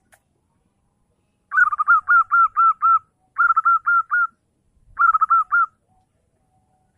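Zebra dove (perkutut) singing: three phrases of quick, evenly repeated cooing notes, each note rising and dipping in pitch, the first phrase the longest at about a second and a half and the next two shorter.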